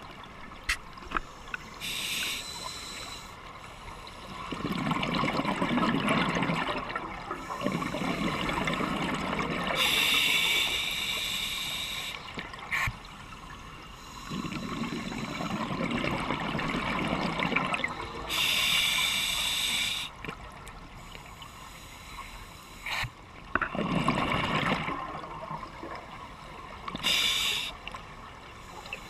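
Scuba diver breathing through a regulator underwater. A hissing inhale comes about every eight seconds, each followed by a long rush of exhaled bubbles.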